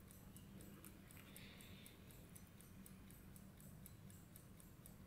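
Near silence: faint, even ticking several times a second over a low steady hum.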